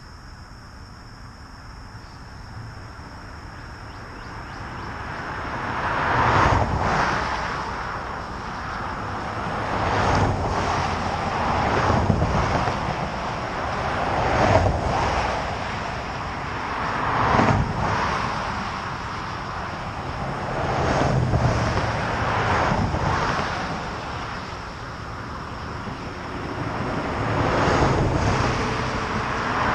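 Highway traffic going past: tyre and engine noise that builds a few seconds in, then rises and falls as one vehicle after another passes.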